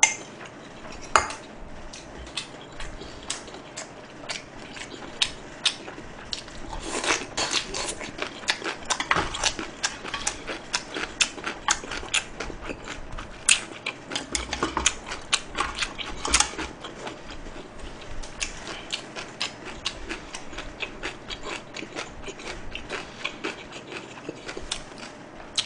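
Close-miked eating: many small wet clicks and smacks of chewing grilled pork belly and chewy noodles. Now and then chopsticks click against a bowl and the grill pan.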